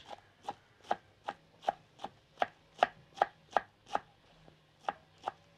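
Kitchen knife chopping cabbage on a wooden cutting board, in steady strokes about two and a half a second, with a brief pause near the end.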